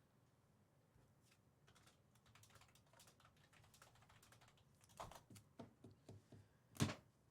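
A run of faint, quick clicks and taps, growing louder after about five seconds, with one sharp click near the end that is the loudest.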